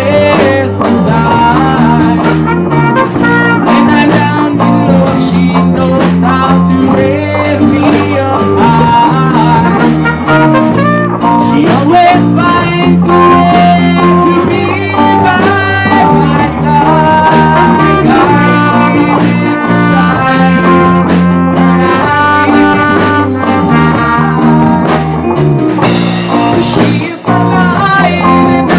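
Live band playing a song on electric guitar, keyboard, trumpet and drum kit.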